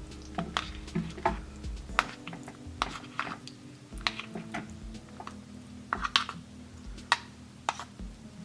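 Utensil scraping and clinking against a ration container and tray as chunky bean-and-beef salad is spooned out, in irregular sharp clicks and scrapes.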